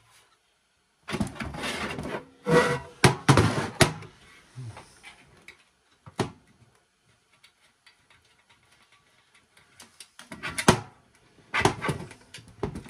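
Sheet-metal cover of a network switch being worked loose and lifted off its chassis by hand, with metal clattering and knocking. A burst of clatter comes after about a second, then a single click, a quiet stretch, and a sharp knock followed by more clatter near the end.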